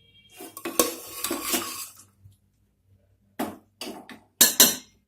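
A metal spoon scraping and clinking against a cooking pot as cooked mutton and gravy are spooned out onto rice, then a few sharp knocks of metal on the pot near the end.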